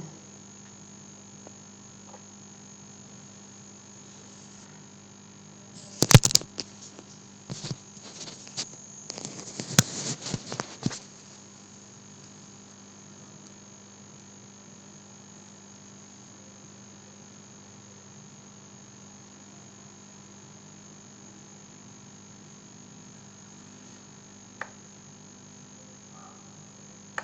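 Steady electrical mains hum on the recording, with a quick run of computer mouse and keyboard clicks about six to eleven seconds in and a single click near the end.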